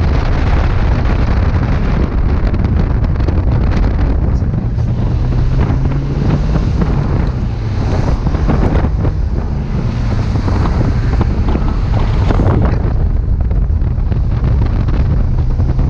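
Wind buffeting the microphone in a 2009 Pontiac Solstice driven with its top down, with the car's engine running steadily underneath.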